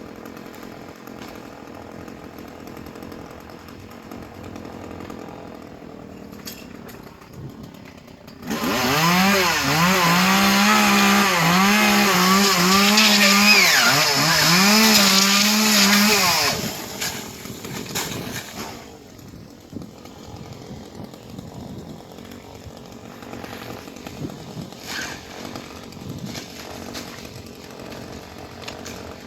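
Stihl chainsaw revving hard for about eight seconds, from about eight seconds in, its pitch surging up and down about five times as the throttle is worked. Before and after, the engine is heard much quieter.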